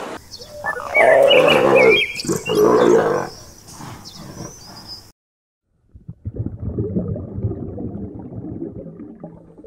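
Giant tortoise calling: two long, loud calls of about a second each. After a brief cut to silence, a quieter low rumbling noise follows.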